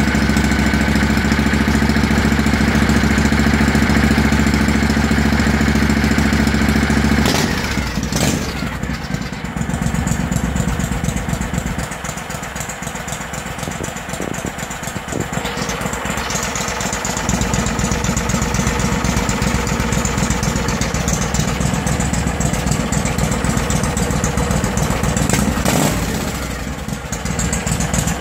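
Briggs & Stratton Vanguard 16 hp V-twin engine of a race mower running with a steady note. About seven seconds in the note changes and the sound drops for several seconds, then it rises again and runs steadily.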